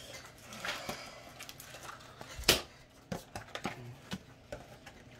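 Pokémon trading cards being handled and sorted: light rustling and scattered soft clicks, with one sharp tap about two and a half seconds in.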